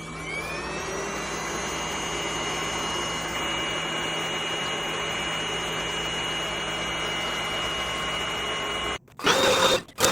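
NADALY 500 W cordless stick vacuum running: its motor spins up with a rising whine, then holds a steady high-pitched whine over a rush of airflow. It shuts off about nine seconds in, followed by two short loud noises.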